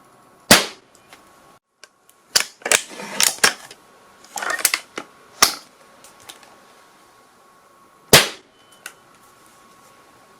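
Gunshot sound effects: a single sharp shot, then an irregular run of shots between about two and five and a half seconds in, and another loud single shot near the end. Each shot has a short fading tail.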